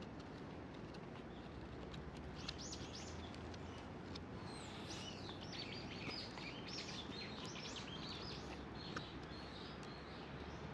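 Small birds chirping in quick runs of short calls against a faint steady outdoor background, starting about two seconds in and dying away near the end.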